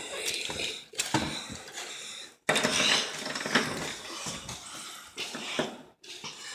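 A chainsaw's small two-stroke engine running, cut off abruptly twice.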